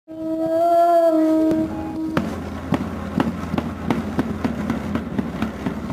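A single long held note, horn-like and full of overtones, for about the first two seconds, then hand drums struck at an uneven pace of about two or three beats a second.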